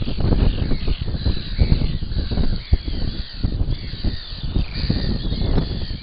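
Seabird colony calling: many overlapping harsh calls. Heavy wind buffets the microphone underneath.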